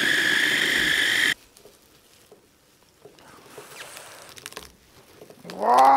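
Electric mini food chopper running at full speed with a steady whine as it chops onion, peppers and garlic, cutting off suddenly about a second in. Then faint rustling of parsley and its plastic bag, and a short pitched vocal sound near the end.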